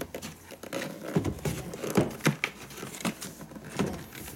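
The cardboard-sleeved plastic case of a PROXXON MSG electric carver is handled and turned over, rustling and knocking in irregular bursts, and is set down on a steel checker-plate bench.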